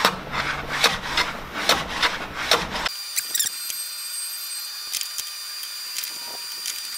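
Hand plane shooting the end grain of an American walnut board on a shooting board: a run of short scraping strokes, about two a second. The strokes stop abruptly about three seconds in, leaving faint workshop hum with a few light ticks.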